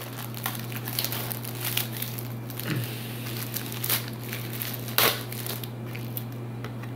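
Packaging crinkling and rustling as it is handled and opened, with scattered small clicks and one sharper snap about five seconds in, over a steady low hum.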